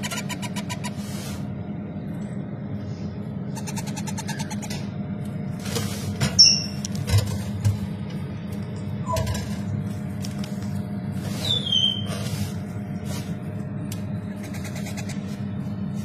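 Parrot chicks giving a few short, high squeaks that slide down in pitch, about six, nine and twelve seconds in, with brief bursts of rapid chatter near the start and about four seconds in, over a steady low hum.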